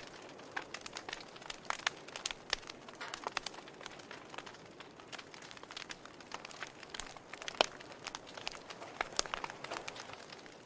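Fire crackling in a fireplace: many irregular sharp pops and snaps over a faint steady hiss.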